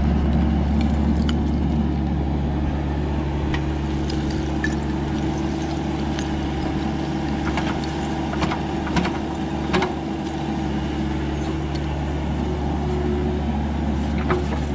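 Excavator's diesel engine running steadily, with a few short, sharp clicks and knocks over the drone.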